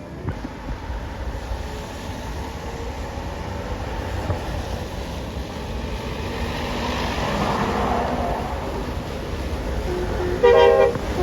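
A bus's engine and road noise building as it comes closer. Near the end its telolet horn plays a tune of several short stepped notes.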